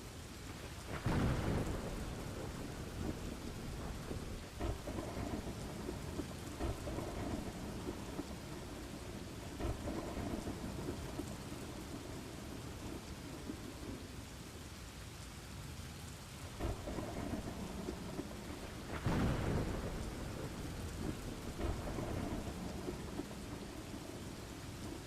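Steady rain with rolling thunder: two louder thunder rumbles swell up, about a second in and again about three quarters of the way through.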